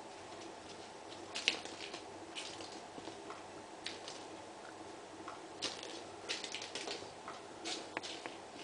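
Young kittens' paws and claws skittering and tapping on a laminate wood floor as they play, irregular light scratches and taps that come thicker in the second half.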